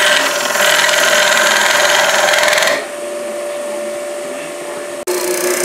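A Grizzly G0733 wood lathe spins a cedar blank while a hand-held turning tool cuts it: a loud, steady scraping hiss of shavings over the motor's whine for about three seconds, then quieter as the cut lightens. A brief break in the sound comes near the end.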